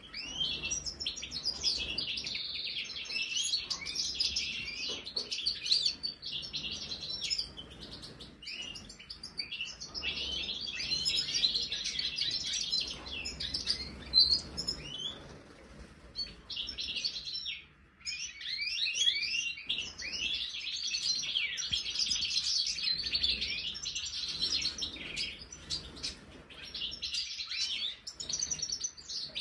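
Major-type European goldfinches singing and twittering: a fast run of high, tinkling chirps and trills, with a couple of short breaks.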